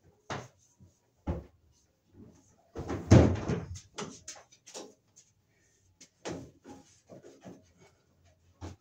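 Red insulated wire being pulled hand over hand through holes in wooden floor joists overhead: scattered knocks and scuffs, with a longer, louder rubbing scrape about three seconds in.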